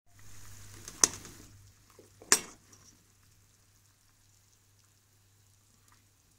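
Thick pine cone and sugar syrup sizzling in a steel pot for the first second and a half, with a metal ladle knocking sharply against the pot twice, the second knock the loudest.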